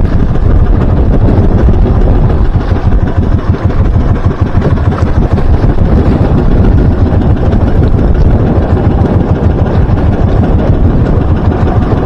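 Engine of a small outrigger fishing boat (bangka) running steadily, throttled down to idle while the longline is set, with water splashing along the hull.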